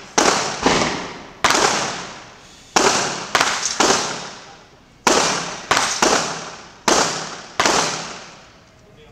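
Gunfire on a shooting range: about a dozen sharp shots at irregular intervals, some only half a second apart. Each shot trails off in an echo lasting about a second.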